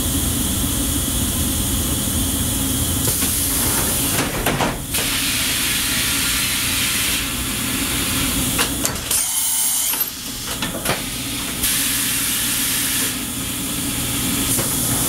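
Milltronics HMC35 horizontal CNC milling machine running under power: a steady hiss with a low hum beneath it. A few short knocks come around the middle as its panels and tool changer move.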